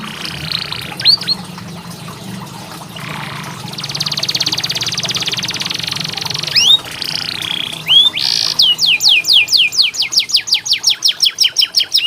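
Domestic canary singing: fast buzzy rolled trills and upward-sweeping whistled notes, then near the end a rapid run of repeated sweeping notes, about five a second.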